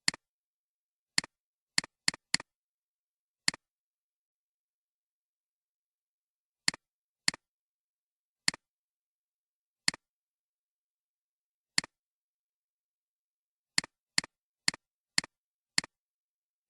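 About sixteen sharp clicks at uneven intervals, each a crisp press followed at once by a fainter second click, with dead silence between. Near the end comes a quicker run of five, about two a second.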